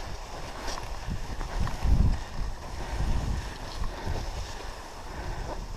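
A dog-pulled sled's runners sliding over a packed snow trail, a low rumble with wind noise on the microphone. There is a heavier jolt about two seconds in.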